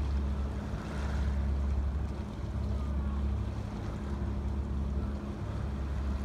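Wind buffeting the microphone with a low rumble over harbour water lapping at a wharf's pilings, the splash swelling about a second in. A steady low hum runs underneath.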